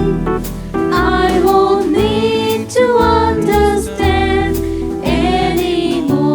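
Church choir singing a gospel song with voices sliding between sustained notes, over instrumental accompaniment with a steady percussive beat.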